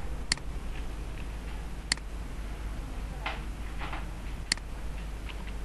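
Three sharp clicks, one to two and a half seconds apart, from working at a computer, over a steady low hum. Two fainter, softer sounds fall between the second and third clicks.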